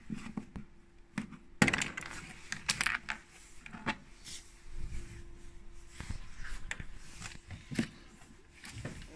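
Scattered clicks and knocks of a screwdriver prying plastic retaining clips out of a Renault Megane II's plastic cowl panel below the windscreen, with one sharp snap about one and a half seconds in.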